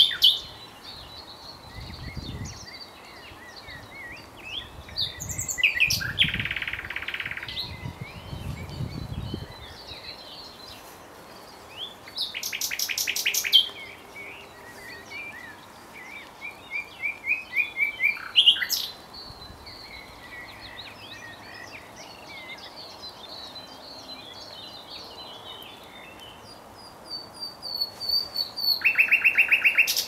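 Common nightingale singing in loud, separate phrases with pauses between them: fast runs of rapidly repeated notes, a buzzy note, and a series of repeated notes that grows louder, peaking about 18 seconds in.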